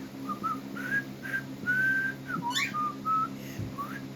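Whistling: a string of short, clear whistled notes, some held steady and some sliding up or down, with one quick, sharp upward chirp about two and a half seconds in.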